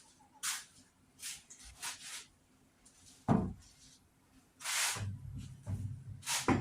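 Handling noises: a few scattered light knocks and clicks, one louder knock about three seconds in, a short rustling scrape, then irregular low rubbing and shuffling near the end.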